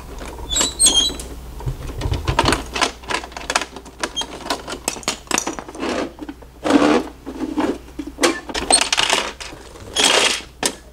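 Hard plastic clicking and clattering as Lego bricks and a plastic Bruder toy garbage truck are handled: a quick run of small clicks, with a few louder rattles in the second half.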